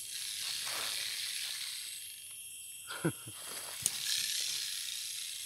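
Porcupine in a wire cage trap rattling its quills: a dry, hissing rattle that swells and fades twice. About three seconds in there is a short sound sliding down in pitch, then a sharp click.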